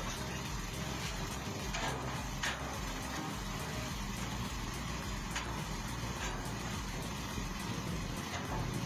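An engine running steadily with a low rumble, with a few sharp clicks or knocks now and then.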